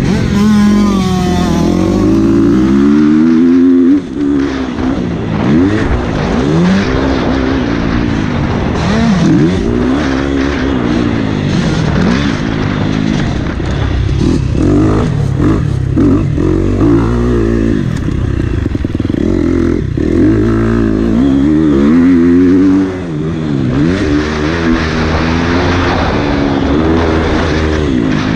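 Motocross bike engine being ridden hard, the revs climbing and dropping every second or two as the rider opens and closes the throttle through the track's corners and straights. The throttle is shut off sharply about four seconds in and again near the 23-second mark before the engine picks up again.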